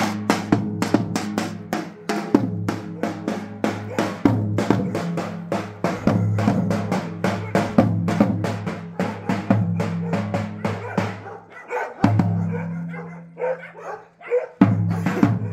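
Davul drum beaten in a fast, steady rhythm of about three strokes a second over a sustained low droning tone. The drumming breaks off briefly about twelve seconds in and again near the end.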